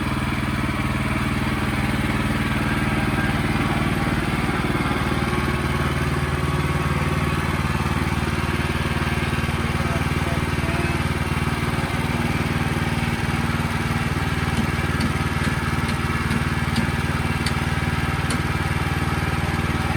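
Wood-Mizer portable band sawmill's engine running steadily at a constant speed.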